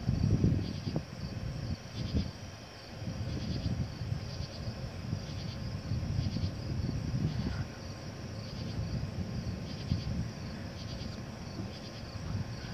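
Insects calling in short pulses that repeat about once a second, over a louder, uneven low rumble.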